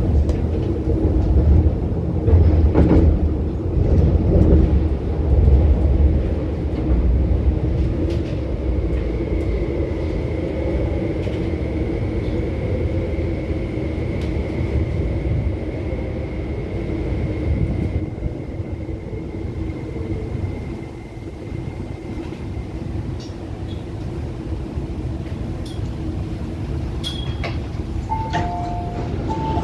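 MTR SP1900 electric train heard from inside the carriage, with a heavy rumble as it runs. A steady high whine holds through the middle while the train pulls into a station. Near the end, two short alternating tones sound.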